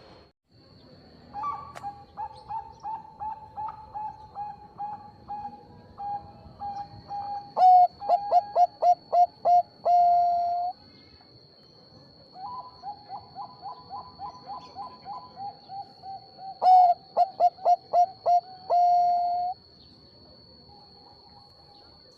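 Bangkok-type zebra dove (perkutut) singing two song phrases. Each phrase is a run of quick, evenly spaced coos that turns into louder notes and ends on one long held note; the second phrase begins about two seconds after the first ends.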